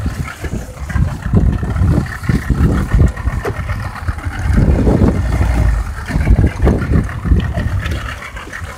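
Uneven low rumble of wind buffeting the microphone over a small boat's 75-horsepower outboard motor running at sea, loudest around the middle.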